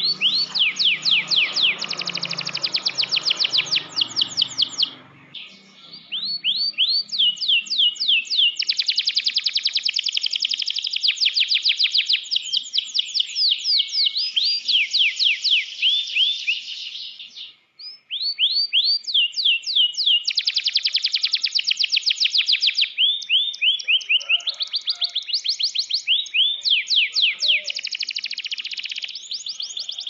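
Domestic canary singing in long, fast trills of rapidly repeated sweeping notes, with short breaks about five and eighteen seconds in.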